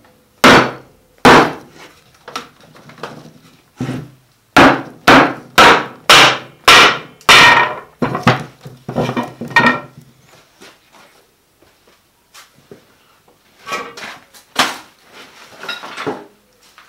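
Sharp knocks on a forged iron holdfast set in a wooden workbench, some with a short metallic ring: two near the start, a fast run of about six about halfway through, then lighter knocks and a last cluster near the end.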